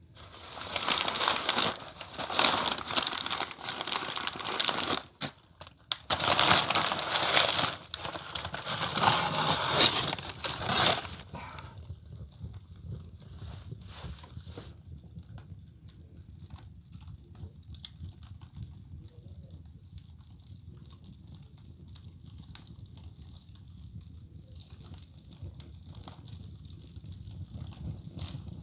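Paper crinkling and crackling loudly in stretches for about the first eleven seconds while a fireplace is being lit, then a much quieter fire crackling with scattered small pops over a low rumble.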